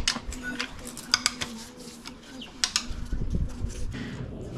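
Scattered light metallic clicks and knocks of hand tools working a Ford Barra engine's steel sump loose, the pan still stuck on by its silicone sealant, with a low scraping rumble about three seconds in.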